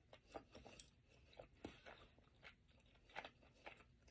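Faint chewing: irregular soft mouth clicks and crackles of someone eating tteokbokki, chewy Korean rice cakes.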